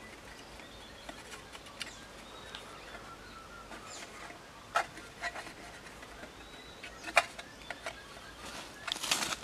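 Light clicks and knocks of a metal mess tin being handled and greased, with a short scraping rustle near the end, over quiet outdoor ambience with faint bird chirps.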